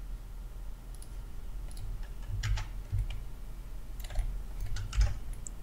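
Scattered clicks from a computer mouse and keyboard, a few in quick clusters past the middle, over a low steady hum.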